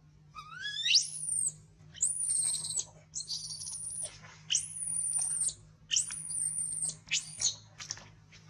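Infant macaque crying: a run of about six shrill, very high-pitched screams. The first sweeps sharply upward, the next ones are each held for around half a second to a second, and the last is brief.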